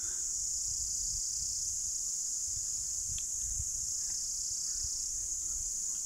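Steady high-pitched chorus of insects shrilling without a break, with an uneven low rumble underneath.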